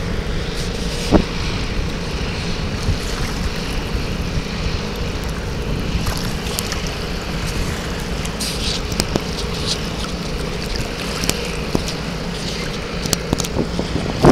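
Wind noise on the microphone over small waves lapping and splashing along the side of a water-filled AquaDam barrier, with a faint steady hum underneath.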